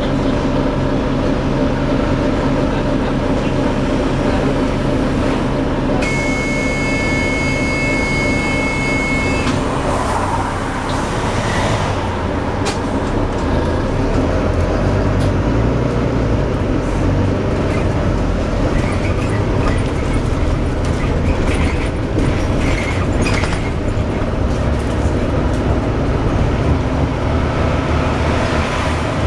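Volvo B9TL double-deck bus running, its engine and drivetrain giving a steady drone with a noisy axle, the sign of a bad axle. A high steady tone sounds for about three seconds, about six seconds in.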